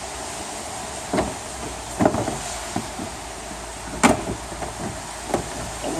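2013 Ford Mondeo headlight assembly being worked free of the car body: a few sharp plastic knocks and clunks, the loudest about four seconds in.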